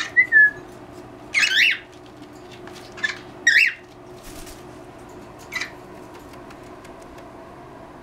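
Pet parrots calling: a short whistle that falls in pitch right at the start, followed by a handful of brief chirps over the next several seconds.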